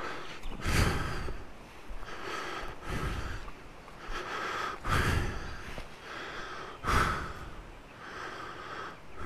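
A man's breathing close to the microphone: short, noisy breaths, one about every two seconds.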